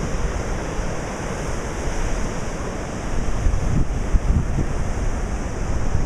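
Heavy storm surf crashing and churning along a seawall, with strong blizzard wind buffeting the microphone, the gusts heavier from about halfway.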